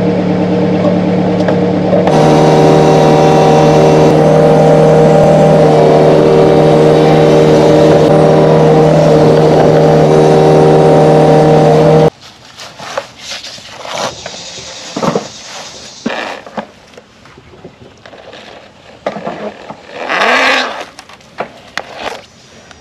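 Kubota mini excavator running steadily with its engine and hydraulics, a loud even drone with a few held tones. About halfway through it cuts off suddenly, leaving much quieter scattered scrapes and knocks.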